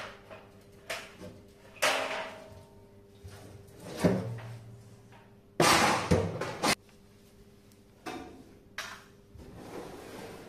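Sheet-metal parts and drum of a tumble dryer being handled and set down: a few separate clunks and knocks, and about six seconds in a louder scraping clatter lasting about a second.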